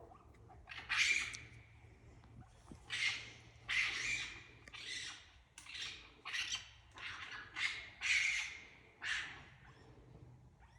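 Harsh, hissing screeches from an unseen animal high in a tree, repeated about once a second, each under a second long. The recorder takes them for raccoons.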